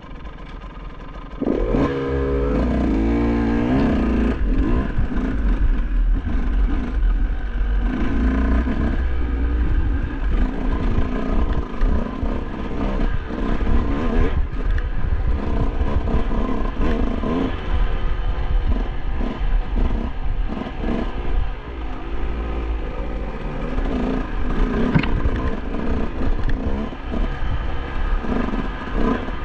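Dirt bike engine revving up and down as it is ridden, the pitch rising and falling constantly; it jumps to full volume about a second and a half in.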